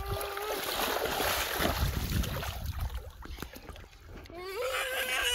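Water splashing and sloshing as a large fish thrashes in shallow muddy water while being held by hand. A voice calls out briefly at the start and again from about four seconds in.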